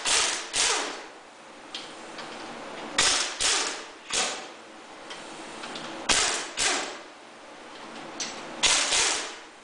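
Pneumatic impact wrench hammering in short bursts, mostly in pairs every few seconds, breaking loose the cylinder head bolts on a Yamaha Big Bear 350 ATV engine.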